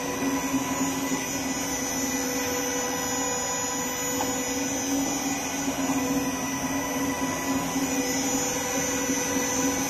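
Double sigma blade kneader mixer running empty in forward direction at raised speed: its electric motor and gear reducer give a steady hum with a thin, high whine above it.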